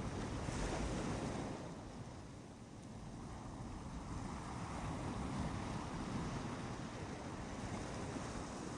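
Ocean surf on a beach: a wave breaks and washes up near the start, the wash dies down about two seconds in, and the surf builds again after.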